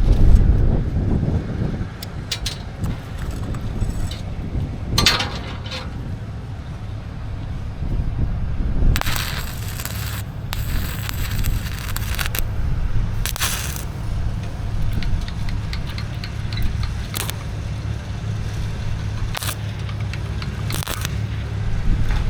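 Welding arc crackling on steel in a series of short bursts, each about a second or a few seconds long, starting about nine seconds in, over a steady low hum. A low rumble and scraping come early on.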